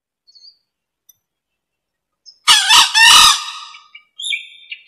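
Male green junglefowl crowing once, a short two-part crow about two and a half seconds in, as used for a lure call. High chirping calls follow near the end.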